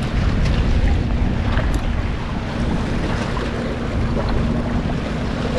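Strong wind buffeting the microphone, a gusty low rumble over the wash of waves on the jetty rocks. A steady low hum comes in about halfway through.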